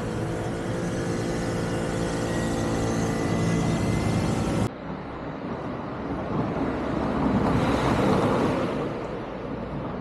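City street traffic: a motor vehicle's engine hum with a steady pitch, then after an abrupt cut, a vehicle passing by, loudest about eight seconds in.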